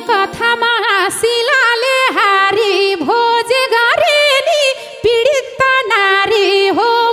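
A woman sings a Nepali dohori folk verse solo into a microphone, in short phrases with a bending, ornamented pitch. A held accompaniment note sounds under her for about the first half-second.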